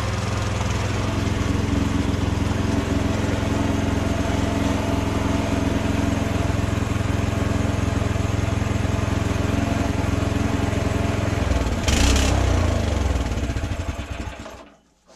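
Small petrol engine of a walk-behind rotary tiller running steadily. About twelve seconds in it briefly gets louder and harsher, then dies away near the end.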